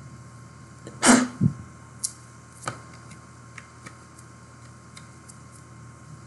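Sports trading cards being handled on a table: a short scraping rustle and a low thump about a second in, then a few light clicks and taps.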